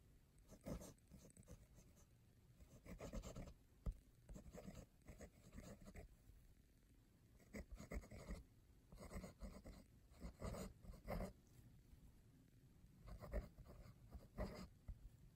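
Fountain pen's fine #6 steel nib writing on paper: faint, irregular scratchy strokes in short clusters, one cluster per word, with brief pauses between.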